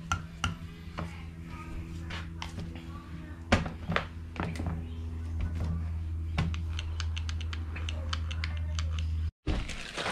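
Knocks and clicks of a Makita angle grinder and small metal parts being handled and set down on a workbench, with a run of small ticks in the second half, over a steady low hum. Near the end, after a brief break, a plastic bag rustles.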